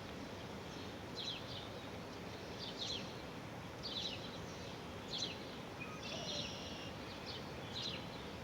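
Birds chirping: short, sharp calls that fall in pitch, repeating about once a second, with a few longer held high notes about six seconds in, over steady outdoor background noise.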